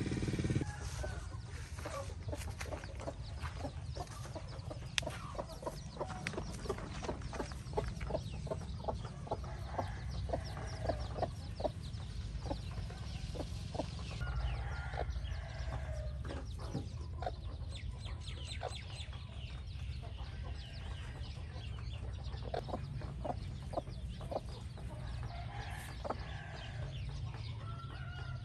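Hen clucking and her young chicks peeping, many short calls throughout: low clucks and high, quickly falling peeps. A steady low rumble runs underneath.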